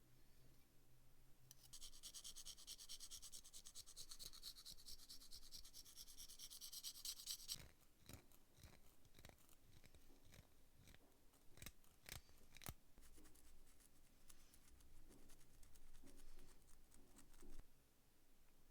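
Fast, steady scratchy brushing or scraping for about six seconds, then a series of sharp clicks and taps, the loudest about two thirds of the way through, with lighter scraping near the end.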